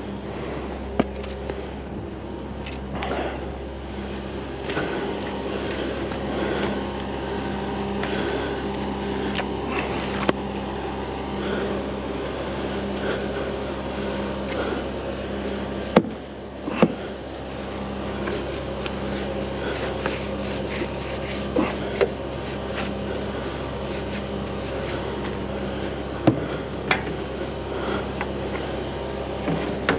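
Long-handled wash brush scrubbing a JCB Fastrac tractor's bonnet over a machine's steady hum, with a few sharp knocks along the way.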